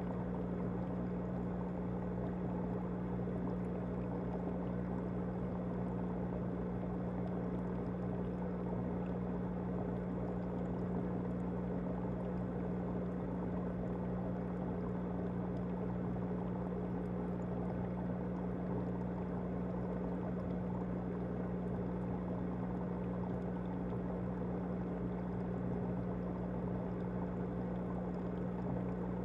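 Aquarium pump humming steadily, with an even rush of moving water.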